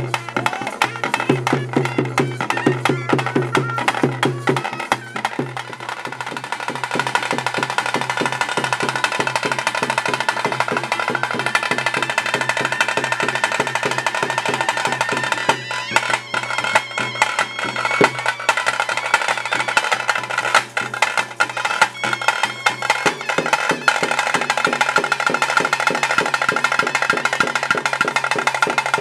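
Traditional ritual music for a Tulu daiva nema: drums beaten in a fast, dense rhythm, with a reed pipe playing long held notes over them from about six seconds in.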